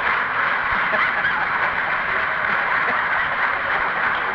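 Audience applauding steadily, with laughter mixed in.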